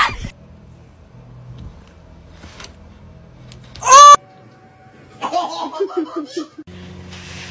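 A woman's short, loud scream about four seconds in. About a second later, a person laughs in quick repeated bursts for about a second and a half.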